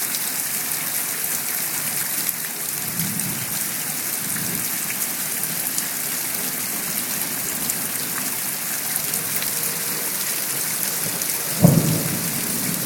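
Steady rain hiss with a low roll of thunder about three seconds in, then a sudden, loud thunderclap near the end that rumbles on.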